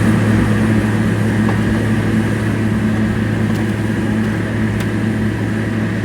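Heavy diesel road-construction machinery running steadily at a constant engine speed, a loud low drone that fades slightly toward the end.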